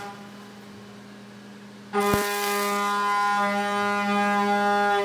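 Hurco VMX30Di's direct-drive spindle turning a 5/8-inch end mill at about 12,200 rpm, giving a steady pitched whine. About two seconds in, the cutter bites into the aluminum for a roughing pass with a sharp hiss and click, and the cutting whine grows much louder and holds steady until it drops away at the very end.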